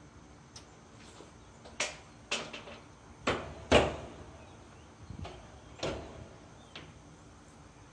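Sharp metal clacks and knocks from a steel smoker's cook-chamber door being opened, its latch clamps being popped loose one after another. About seven knocks, the loudest just before the middle.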